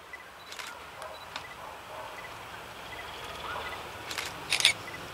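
Faint low rumble of a distant SM42 diesel shunting locomotive approaching, slowly growing louder, with a few short, sharp bursts, the loudest a quick cluster near the end.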